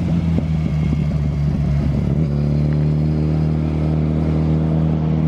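Sport motorcycles riding past on a mountain road. From about two seconds in, one engine holds a steady note.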